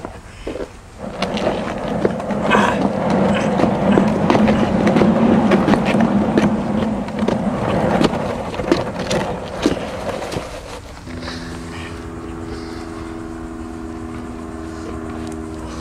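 A large plastic trash can dragged across asphalt: a rough scraping rumble with scattered knocks that lasts about ten seconds. It then gives way to a steady low drone of several held tones.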